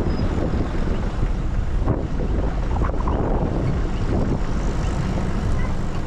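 Strong wind buffeting the microphone: a loud, steady, fluttering low rumble with a hiss above it.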